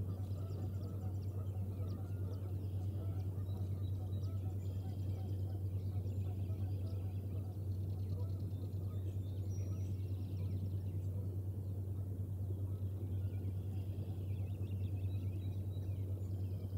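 Steady outdoor nest-cam ambience: a constant low hum with a rushing noise, and faint high bird chirps and trills scattered throughout.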